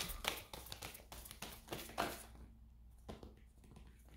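Tarot cards being shuffled in the hands: a quick run of soft card clicks for about two seconds, then a few single taps.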